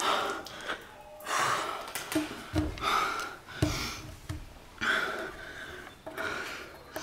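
A young woman breathing hard in loud, gasping breaths, about one a second.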